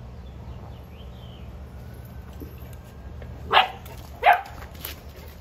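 Boerboel barking twice in quick succession, two short loud barks about three and a half seconds in.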